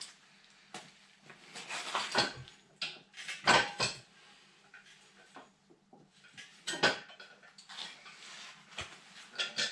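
Irregular metallic clinks and clatters of hand tools and small engine parts being handled and set down, in about half a dozen short bursts.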